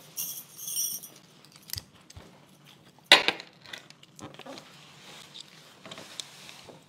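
Wooden chopsticks clicking and scraping against each other and the plastic sushi tray, with one sharp clack about three seconds in.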